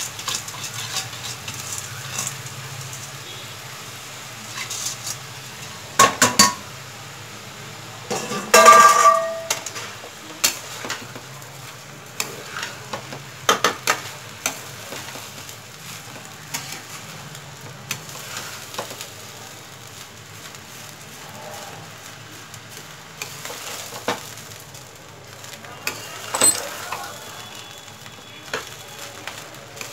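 Washed basmati rice sizzling as it is fried in butter in a non-stick pan, stirred with a steel spatula. Now and then metal utensils clink and clank against the pan, the loudest a ringing clank about nine seconds in.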